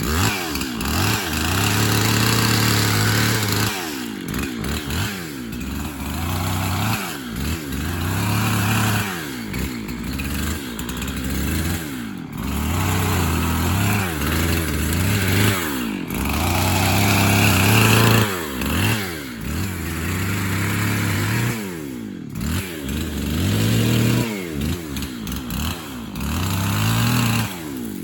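Two-stroke chainsaw running, its throttle opened up and let back over and over, every couple of seconds, as it cuts through brush.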